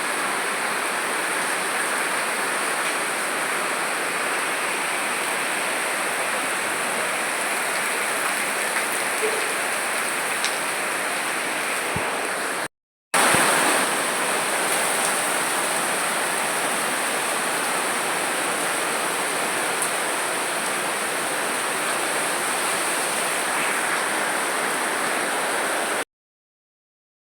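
Steady rain falling, an even dense hiss. It drops out for half a second about thirteen seconds in, then stops abruptly near the end.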